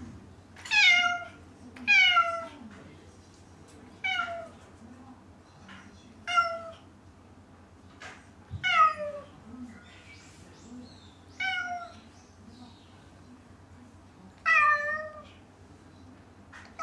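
Domestic tabby cat meowing repeatedly, seven loud calls that each slide down in pitch, spaced one to three seconds apart. It is a lonely cry for its absent people.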